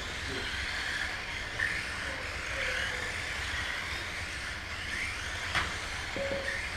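Several Mini-Z 1:28-scale electric RC cars racing, their motors and gears whining and rising and falling in pitch as they speed up and slow down. There is one sharp click about five and a half seconds in.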